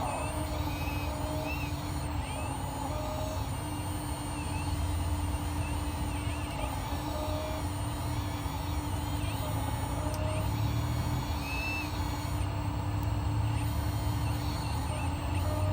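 1/14 scale RC hydraulic excavator running, its hydraulic pump giving a steady hum whose pitch shifts a little as the machine works.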